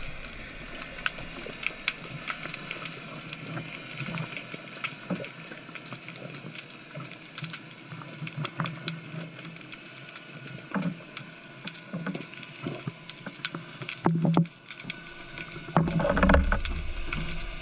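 Underwater ambience heard through a GoPro's waterproof housing during a dive: a steady hiss scattered with many short, sharp clicks and crackles. A louder low rush of water comes about two seconds before the end.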